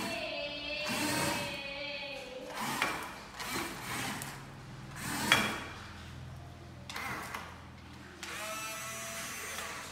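Huina RC excavator's small electric gear motors whining as the boom, arm and bucket move, the pitch wavering. A lower steady hum runs through the middle, with a few sharp clicks, the loudest about five seconds in.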